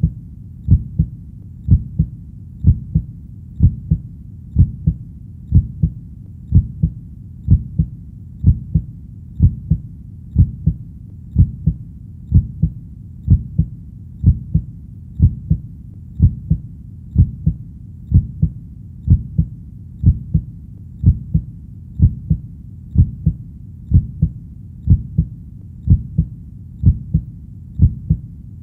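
Heartbeat: a slow, steady rhythm of paired low thumps (lub-dub), about one beat a second, with no change in pace.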